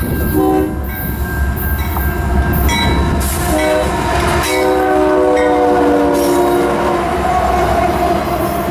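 Multi-chime air horn of a CSX GE AC44CW-led intermodal train: a short blast about half a second in, then a long blast from about three and a half seconds in to near the end, sounded as the locomotive passes close by. Under it run the diesel engines' low rumble and the wheels rolling on the rail.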